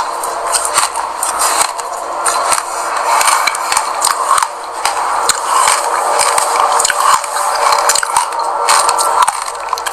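Loose sesame seeds rustling and crackling as a seed-coated bar on a stick is pressed and rolled through a bowl of seeds, mixed with crunchy chewing of sesame seeds: a dense, continuous crackle full of small clicks.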